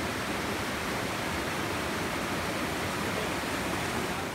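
Waterfall water rushing in a steady, even roar of noise.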